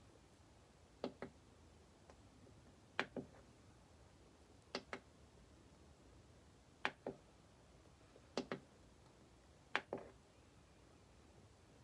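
Push-button selector knob on a Fender Mustang LT50 amp clicking as it is pressed and released, six double clicks about every one and a half to two seconds while the menu is stepped through. No guitar is played.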